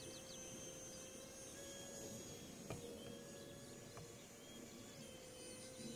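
Faint, steady whine of a small model jet's 30mm electric ducted fan flying far off, its pitch shifting slightly now and then with the throttle. A single short click comes a little under halfway through.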